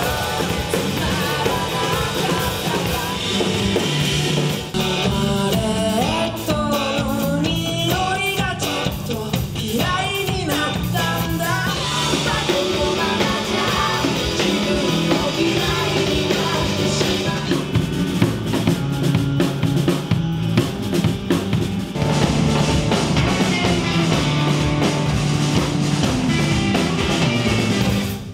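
Rock band music: a drum kit and bass with a singing voice over them. It cuts off abruptly at the end.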